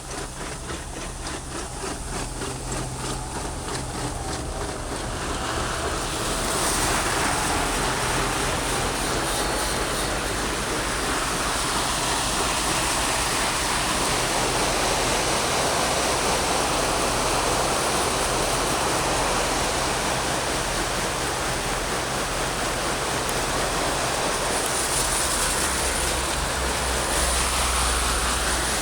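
Tractor running steadily, a low engine hum under a loud, even rushing noise that swells over the first six seconds and then holds level.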